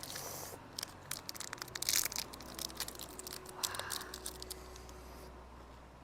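Plastic candy wrapper crinkling and tearing as it is opened. A flurry of crackles comes in the first two seconds and a brief rustle about four seconds in, then it quiets down.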